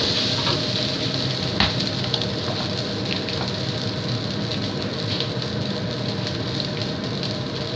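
Fried rice sizzling steadily in a non-stick wok over a gas flame. A wooden spatula scrapes and taps the pan in the first two seconds, with one sharp tap about a second and a half in, then the rice is left to fry.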